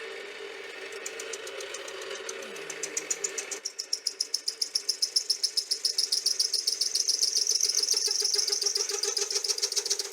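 Metal lathe cutting a steel workpiece: a steady motor hum, then from about three and a half seconds in a loud, high-pitched squeal from the cut that pulses several times a second.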